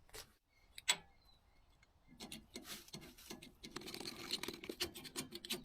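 Irregular light clicks, knocks and scraping of hands handling something, with one sharp click about a second in and a busier run of scrapes over the last few seconds.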